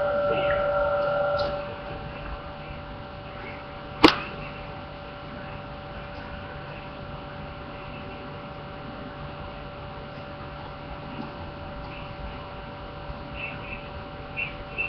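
A steady hum of a few held tones, louder for the first second and a half and then fainter, with one sharp click about four seconds in.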